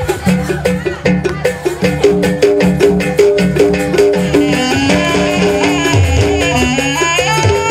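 Jaranan dance music: a steady, busy percussion beat under a repeating pattern of pitched chime-like tones, with a higher melody line entering about halfway through.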